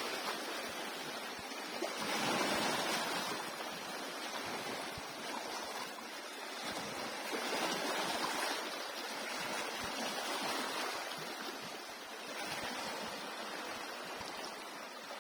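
Surf breaking on a beach: a steady rushing wash that swells and eases every few seconds as waves come in.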